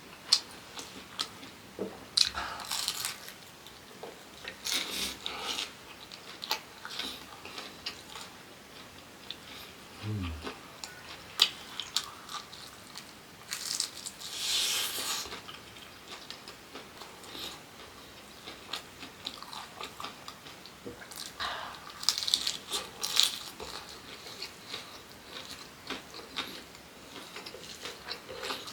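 Close-up eating sounds: food being bitten and chewed with crunching, wet mouth clicks and smacking, coming in irregular bursts.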